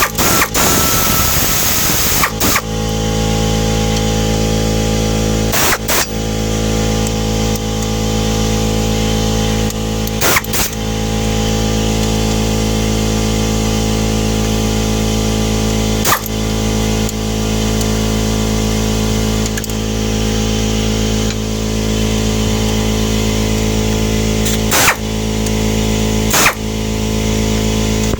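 A steady mechanical drone, like a motor running, goes on throughout, with a handful of sharp clicks or knocks now and then.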